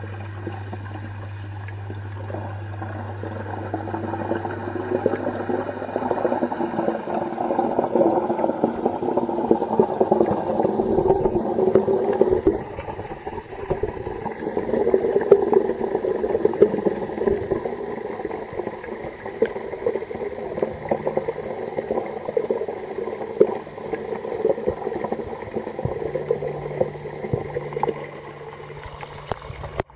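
Muffled water noise heard underwater: a low steady hum for the first few seconds, then continuous bubbling and gurgling with small clicks and knocks.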